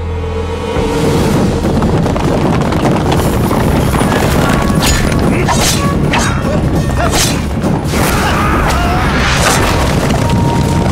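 Battle sound effects over music: a dense din of crashes, booms and impacts, with several sharp hits standing out every second or two from about three seconds in.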